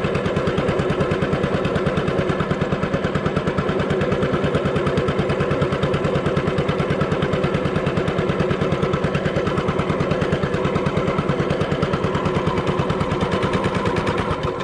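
Boat engine running steadily with an even, rapid throb.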